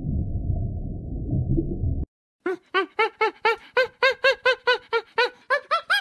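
A low, dull underwater rumble that cuts off abruptly about two seconds in. After a brief silence comes a rapid run of chirping calls from a small monkey, about four a second, each rising and falling in pitch.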